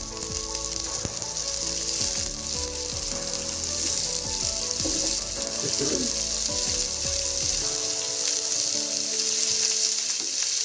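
Hot oil sizzling steadily as chunks of potato, pumpkin and drumstick pods fry with onions in a kadai, with occasional knocks.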